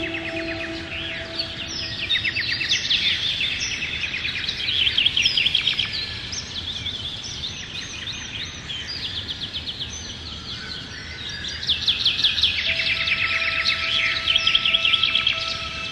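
Songbirds singing fast, trilled phrases of rapidly repeated chirps, loudest about five seconds in and again near the end, over a soft ambient music pad of long held notes.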